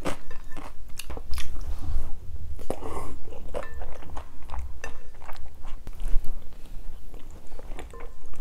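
Close-miked chewing and wet mouth sounds of someone eating soft abalone rice porridge, with many short sticky clicks coming irregularly.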